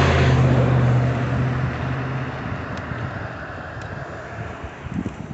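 A motor vehicle passing close by and moving away: a steady low engine hum with road noise, loudest at the start and fading over the first two seconds.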